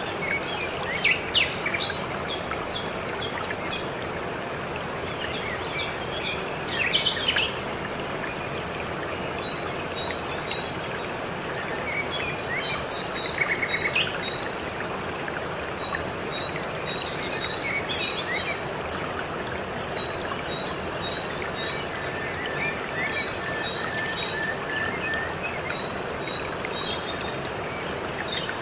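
Steady rush of a waterfall with several birds chirping over it, including short high notes repeated in quick runs.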